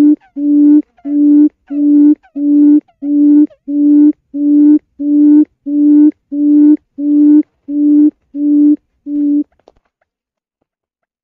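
Quail call: a long series of low, even hoots, nearly two a second, that stops near the end.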